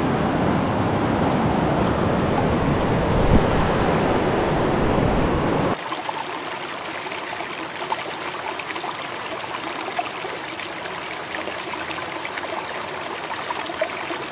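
River water rushing over rocks, loud and full at first. About six seconds in it cuts abruptly to a lighter, closer trickle with small splashes of shallow current around a hand holding a brook trout in the water.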